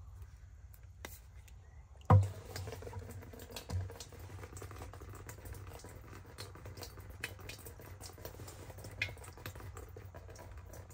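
Apple cider vinegar pouring from a plastic bottle into a plastic 5-gallon chicken waterer, a steady trickle. A sharp knock about two seconds in and a softer one near four seconds, as the bottle and jug are handled.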